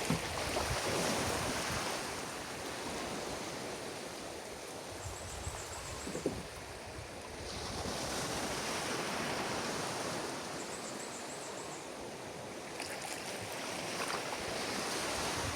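Ocean surf washing onto a beach, rising and falling in slow swells.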